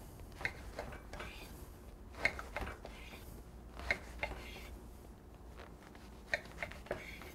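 Kitchen knife sawing through a bagel on a wooden cutting board: faint scratchy crackle of the crust with scattered sharp clicks and taps, the loudest a little after two seconds and near four seconds in.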